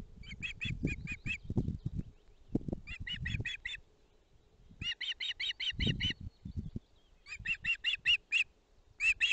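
Osprey calling: five runs of about six short, sharp whistled chirps, with a pause of about a second between runs. Low, irregular knocks of raindrops hitting the camera sit beneath the calls.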